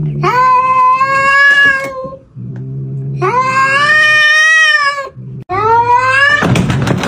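Orange tabby cat yowling at another cat: three long drawn-out calls, each rising then held, with a low growl in the pauses between them, a hostile warning. Near the end the yowling cuts off.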